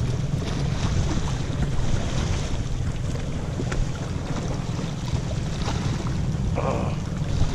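Wind blowing across the microphone as a steady low rumble, with small sea waves washing against the shore rocks.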